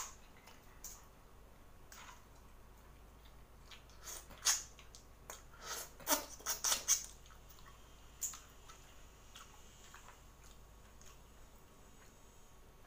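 Close-mic mukbang eating sounds from a person eating boiled seafood by hand: wet sucking and smacking noises at the mouth, with a quick run of them about six to seven seconds in.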